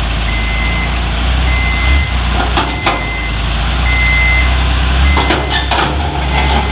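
Hyundai HL740-3 wheel loader's diesel engine running with its reversing alarm beeping steadily, about one beep a second, plus a few sharp knocks in the middle and near the end.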